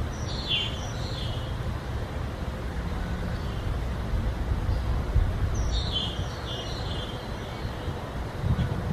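Wind buffeting the microphone as a steady low rumble, with a songbird singing two short phrases of whistled notes, one at the start and another about six seconds in.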